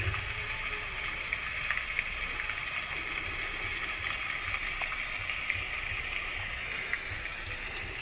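Steady hiss of background noise with a few faint small clicks.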